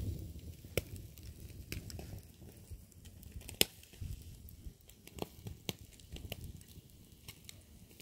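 Wood fire and embers crackling with irregular sharp pops under lamb pieces grilling in a wire grill basket.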